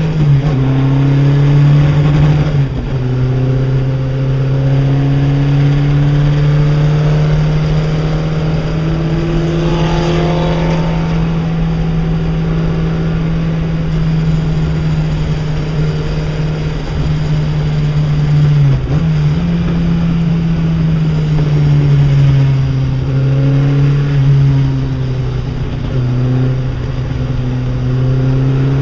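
Chevron B8 race car's engine under hard driving, heard from the passenger seat. Its pitch rises and falls as it accelerates and slows, with short breaks in the tone at gear changes, one about two and a half seconds in and another about two thirds of the way through.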